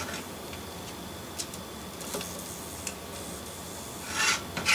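A 00 gauge 0-6-0 model locomotive's small electric motor humming on the test track without driving the loco along, with a few faint ticks and a short scraping rub about four seconds in. The owner puts the binding down to the con rods being set at the same height when they should not be.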